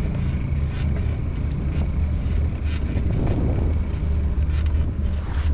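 Steady low rumble of wind buffeting a handlebar-mounted camera's microphone while a bicycle rolls along an asphalt street, with tyre and road noise underneath.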